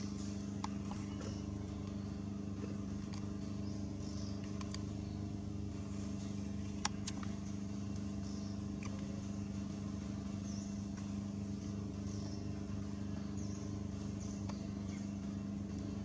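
Steady low motor hum, even in pitch, with a few faint clicks and one sharp click about seven seconds in.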